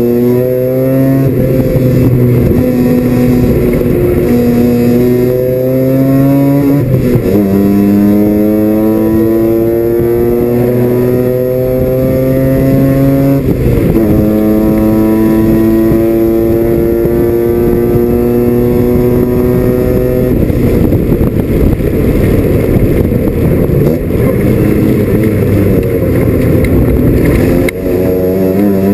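Mazda RX-7 FC race car's 13B rotary engine under hard acceleration, heard from inside the cockpit: the engine note climbs steadily in pitch and drops sharply at two upshifts, about seven and thirteen seconds in. About twenty seconds in the even note breaks up into a rough, crackly sound, and it climbs again near the end.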